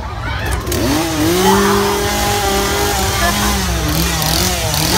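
An engine revving up about a second in and then running at a steady pitch, which sags briefly near the end and recovers.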